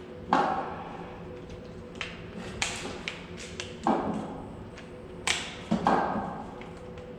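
About six sharp taps and knocks on metal parts of a window-type fan during motor replacement, each ringing briefly, over a faint steady hum.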